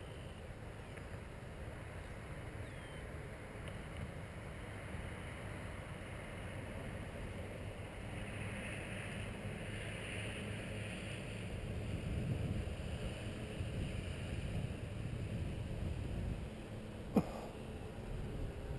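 Wind on the microphone, a steady low noise that grows somewhat louder about twelve seconds in, with a single sharp knock near the end.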